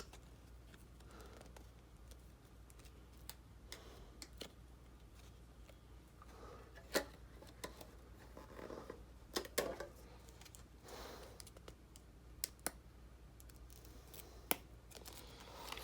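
Faint handling of small plastic calendar number pieces being peeled and worked out of their sheet: soft rustling with scattered sharp clicks, a few of them in close pairs.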